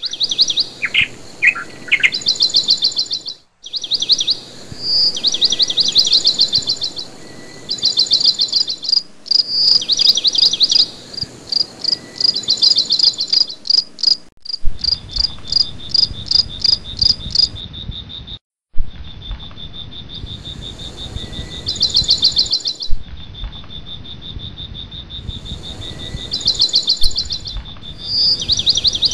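Garden ambience: birds calling in fast repeated chirping trills, joined about halfway through by a steady high insect drone. The sound drops out briefly several times.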